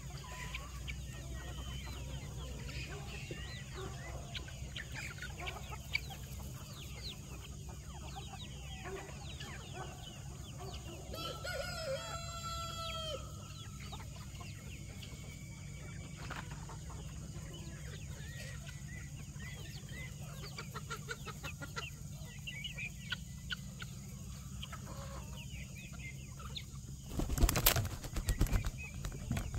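A flock of chickens clucking and chattering, with a rooster crowing once, a single call of about two seconds, roughly twelve seconds in. Near the end comes a sudden, loud, choppy flurry of noise.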